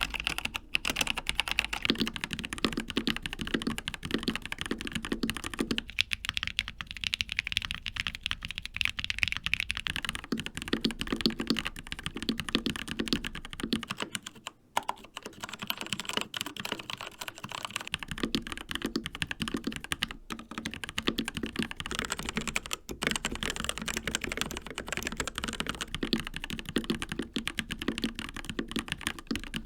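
Continuous fast typing on mechanical keyboards, several boards in turn: a Logitech Pro X TKL with GX Brown tactile switches, then a Monsgeek M1 with Akko Piano Black switches, a Keychron K4 with Gateron Brown switches and a CZC Reaper with TTC Red switches. The key sound changes character at each switch-over, with a brief stop in the typing about halfway through.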